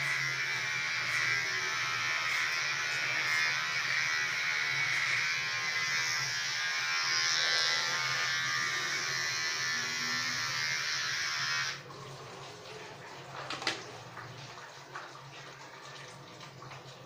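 Electric hair trimmer running steadily while cutting hair, then switched off about twelve seconds in. A few small clicks and one sharper knock of handling follow.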